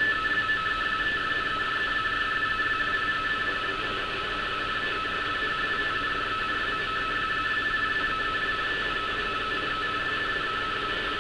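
Radioteletype (RTTY) navigation-warning signal heard through a shortwave receiver's speaker: a continuous warble, the signal flicking rapidly between two tones, over a bed of shortwave static hiss. The signal is clean enough to decode, and the warning text prints as it plays.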